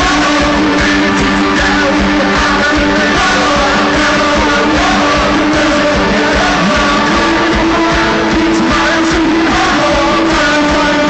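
A live band playing loud rock music, with singing over guitar, keyboards and drums.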